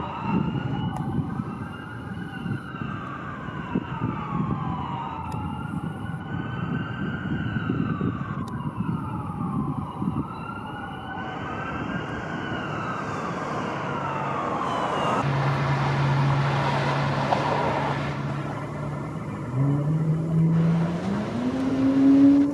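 An emergency vehicle siren wailing, its pitch slowly rising and falling over and over, over a background of traffic noise. Later a low steady hum comes in and steps up in pitch twice near the end.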